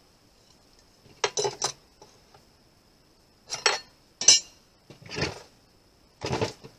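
Hand tools and screws being picked up and set down on a folding table: five short bursts of clinking and clattering. No power tool is running.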